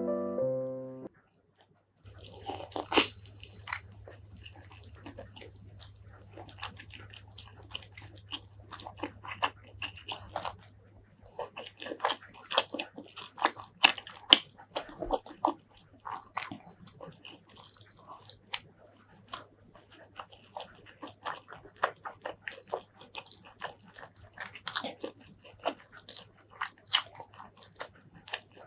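Close-miked eating of pork curry: bites and wet chewing of fatty pork belly and rice, with many quick, irregular mouth and food clicks. A piano tune stops about a second in, and a faint steady low hum sits under the eating.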